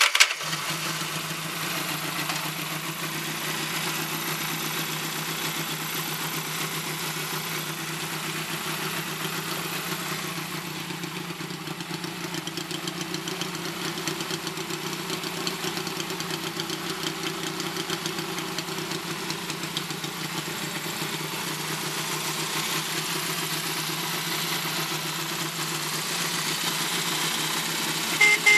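Honda CA77 Dream's air-cooled 305 cc parallel-twin engine running at a steady idle through its exhaust, just started by jumping the starter solenoid.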